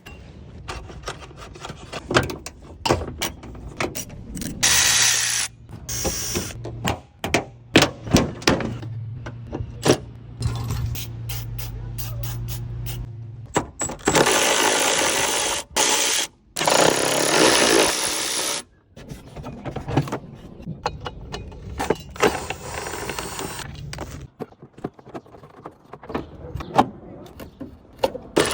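Tool work on a car tail-light: a run of clicks, knocks and plastic handling sounds, with several bursts of a power tool lasting a second or two each while rusted screws are taken out.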